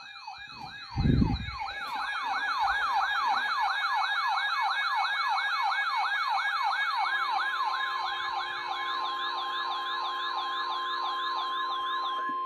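Several electronic alert sirens sounding at once: a fast rising yelp that repeats about three times a second, with higher warbling tones over it. A low thump comes about a second in, and a steady alarm tone joins about halfway. They announce a new weather warning, and all stop together near the end.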